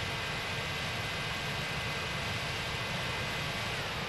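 Brushless electric motor and propeller of a small fixed-wing FPV plane heard from its onboard camera, a steady whine over wind rush while it climbs out on launch throttle. Near the end one tone of the whine falls slightly in pitch.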